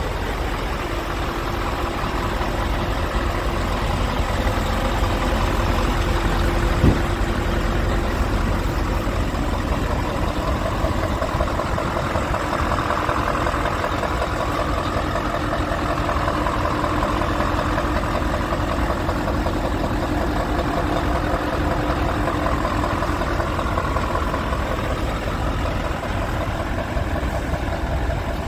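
Heavy truck diesel engine idling steadily, with one sharp knock about seven seconds in.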